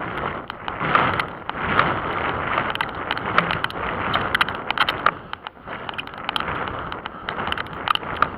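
Wind rushing over the microphone of a camera carried on a run, swelling and easing, with many irregular sharp ticks and knocks from the jostled camera.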